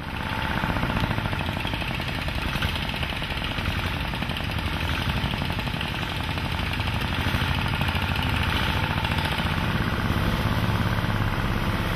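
A small engine running steadily with a rapid pulsing beat. It starts abruptly and keeps an even level throughout.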